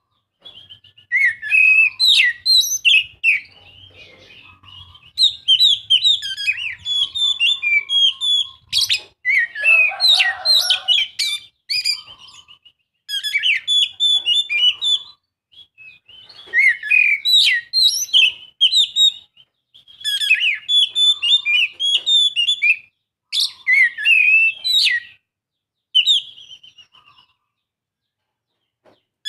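Oriental magpie-robin singing: loud, fast, varied whistled phrases in bursts of a few seconds with short pauses between them, fading to a short quieter phrase near the end. It is the full song used as a lure to set other magpie-robins singing.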